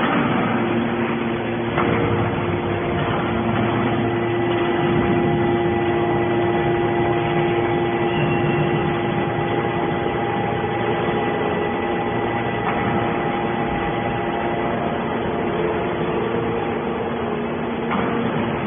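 Hydraulic metal baler's motor and pump running steadily, a hum with a held whine over machine noise. A knock comes about two seconds in and another near the end.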